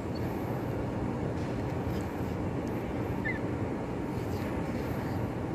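Steady background noise with no clear source, with a brief faint high chirp a little over three seconds in.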